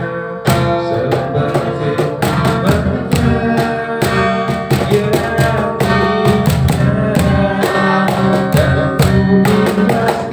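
Music: an acoustic cover song with guitar over a steady beat.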